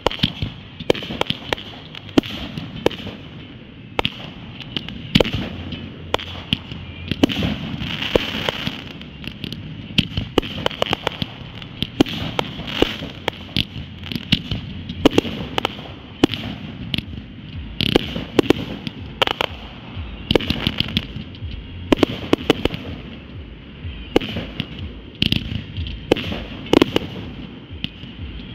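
Consumer fireworks going off in a display: a dense, irregular run of bangs and pops, several a second at times, with no pause.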